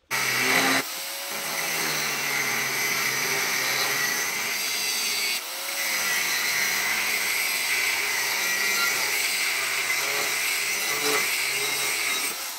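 Angle grinder with a cutting disc cutting through a steel plate: a loud, steady whine over dense grinding noise, with a brief dip about five seconds in.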